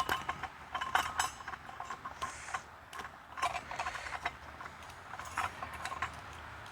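Vacuum cleaner motor being handled while its rubber seal is worked off by hand: a scatter of small clicks, taps and scrapes.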